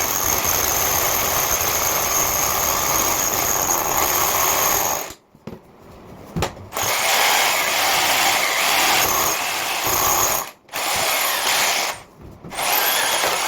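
Electric drill spinning a 65 mm concrete hole saw as it cuts through a concrete wall, with a high steady motor whine over the grinding. It runs for about five seconds, stops, then cuts again in three shorter bursts with brief pauses between them.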